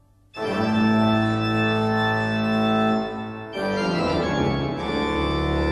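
Organ music: a long held chord begins just after a brief silence, then gives way about three and a half seconds in to a second held chord with a deeper bass.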